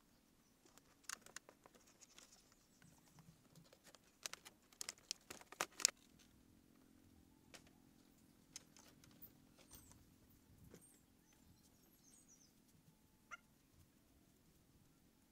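Dry palm-leaf and bamboo rustling and clacking as a leaf shutter panel is pressed and fitted into its frame in a leaf wall, in quick sharp bursts with the loudest near six seconds in. After that, near quiet with a few faint bird chirps.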